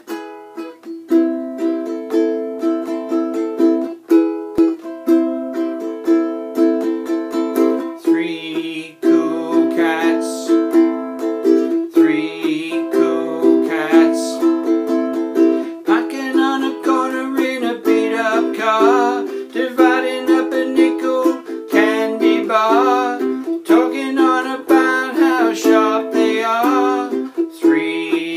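Ukulele strummed in a steady rhythm, with a man's voice singing over it from about eight seconds in.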